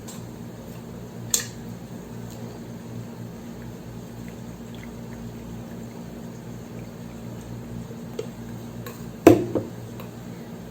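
Light clinks of crockery, one about a second in and a louder double clink near the end, over a steady low room hum.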